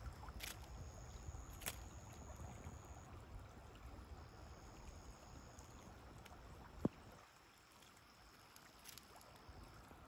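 Shallow stream trickling faintly under a low rumble, with a few light clicks. One sharp tap about two-thirds of the way through, after which the rumble drops away.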